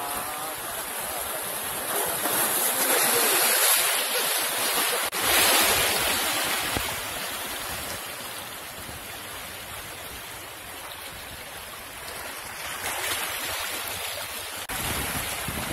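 Sea waves washing in and breaking against shoreline rocks: a steady rush of water with louder surges a few seconds in.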